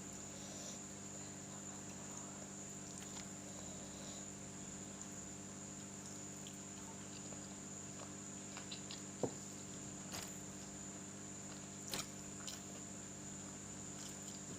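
Quiet eating sounds: chewing, with a few short, soft clicks in the second half, over a steady electrical hum and a faint high whine.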